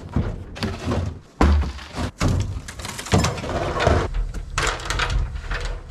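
Repeated thuds and knocks of an extension ladder and work gear being handled, the loudest about a second and a half in.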